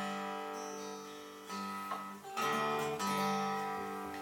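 Acoustic guitar chords strummed slowly and left to ring, a new chord struck about every second, heard as a recording played back through hi-fi loudspeakers.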